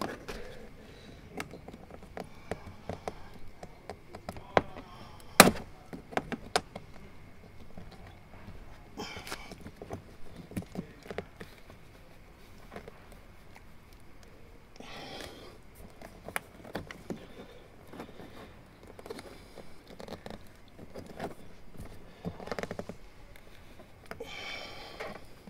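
Scattered plastic clicks, taps and scraping from hands prying at a car door's courtesy light housing, with one sharp, louder click about five seconds in and some brief rustling.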